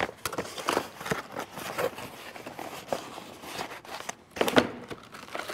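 A small cardboard box being handled and opened, with irregular rustling, scraping and light clicks from the box and its contents, and a louder rustle about four and a half seconds in.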